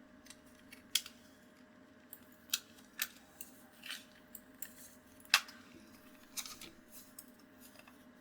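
Light clicks from a Jedel gaming mouse being clicked as it is tested after repair, a dozen or so at uneven intervals, the sharpest about five seconds in. A faint steady hum runs underneath.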